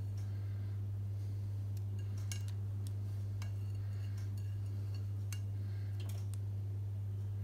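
A steady low hum, with a few faint light clicks scattered through it as chopped green chillies are added to nachos in a glass baking dish.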